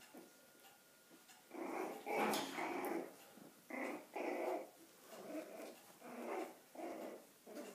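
Five-week-old puppies growling as they play-fight: a longer growl starting about a second and a half in, then a run of short growls.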